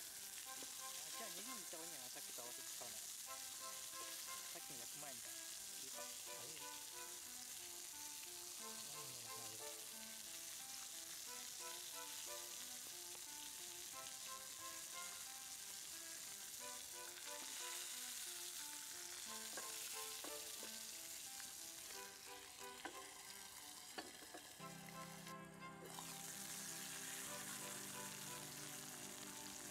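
Lamb chops sizzling steadily in a skillet, under light background music.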